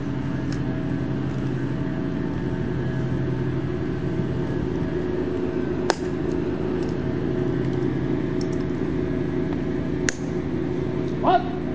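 A steady low mechanical drone with a constant hum runs throughout. Two sharp clicks of the guards' metal-tapped heels come about six and ten seconds in, and a short shouted command comes near the end.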